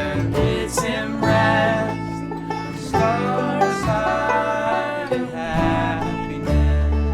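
A bluegrass band playing an instrumental passage: banjo, fiddle, acoustic guitar and double bass. Held, wavering notes ride over a steady bass line.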